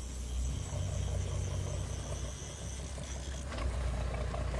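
A boat's engine idling steadily, a low hum that swells a little about three and a half seconds in.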